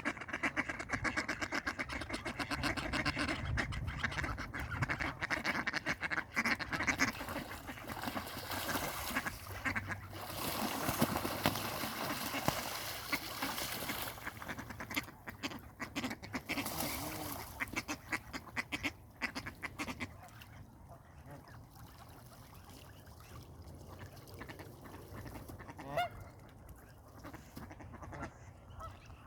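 Ducks fighting, calling loudly and almost without pause, with a harsher, noisier stretch in the middle. After about twenty seconds it dies down to a few scattered calls.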